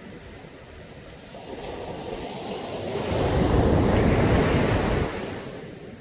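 Caribbean sea waves breaking on a beach: one wave swells in from about a second and a half, is loudest from about three to five seconds, and falls away quickly just after five seconds. Some wind buffets the microphone.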